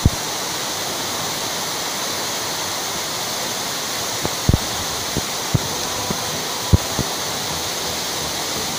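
Waterfall rushing steadily, an even, dense hiss of falling water, with a few short low thumps around the middle.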